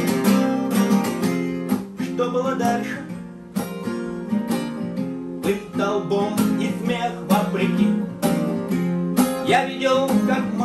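Two acoustic guitars strummed and picked together in a steady song accompaniment, with a man singing in Russian over them.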